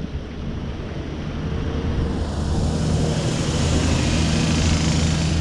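Car traffic passing by: a low engine hum with tyre hiss that grows louder from about two seconds in.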